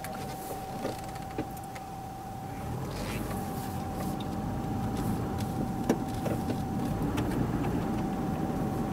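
Car engine and road noise heard from inside the cabin while driving, the low rumble growing louder about three seconds in as the car speeds up. A steady high whine and a few small clicks run under it.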